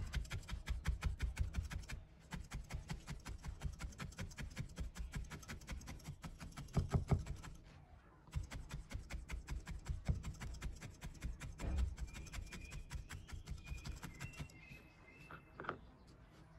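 Felting needle stabbing rapidly and repeatedly through wool roving into a cloth-covered foam pad: quick, even pokes several times a second, with a brief pause about eight seconds in.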